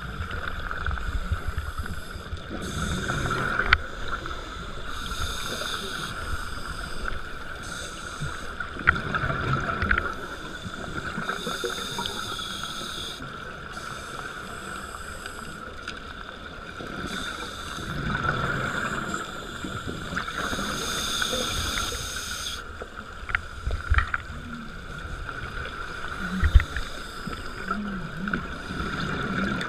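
Underwater scuba dive sound: a regulator's exhaust bubbles burst out in hissing gusts every few seconds with each exhalation, over a steady high hum. A few sharp clicks stand out.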